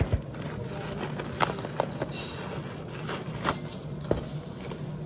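A cardboard box being handled and opened: scattered taps, knocks and scrapes, about five sharp ones, over a steady low hum.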